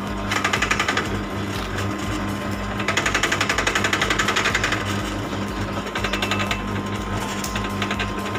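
Electric sugarcane juicer running with a steady motor hum, its rollers rattling rapidly in two spells as stalks of cane are fed through and crushed. The first spell comes near the start and the second from about three to five seconds in.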